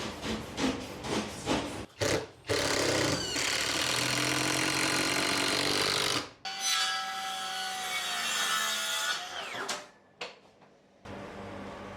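A power tool running in two long bursts of a few seconds each, its motor winding down at the end of the second. Short regular strokes come before the first burst.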